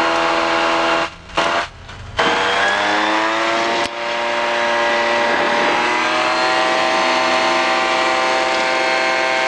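Titan Tornado II ultralight's propeller engine. After a brief dip in level about a second in, its pitch rises steadily for several seconds and then holds steady: power being added for the takeoff run of a touch-and-go.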